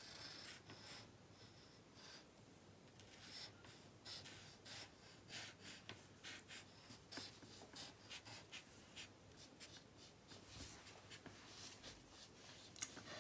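Black felt-tip markers scratching on paper in many short, irregular strokes as two people draw spiky leaves. The sound is faint.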